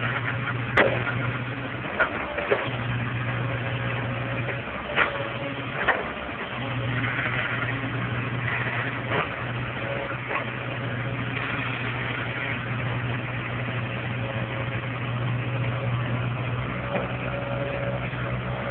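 Komatsu tracked hydraulic excavator's diesel engine running steadily while it digs, its drone dipping briefly a couple of times. Several sharp knocks sound over it.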